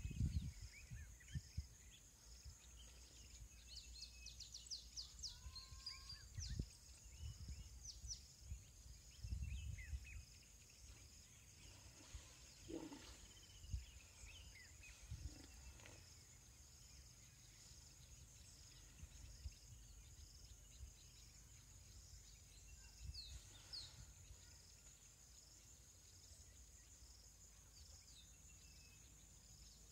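Quiet bush ambience: insects buzz steadily in a high, pulsing chorus while birds give scattered short chirps and whistles. Low rumbling bursts come at the very start and again around ten seconds in.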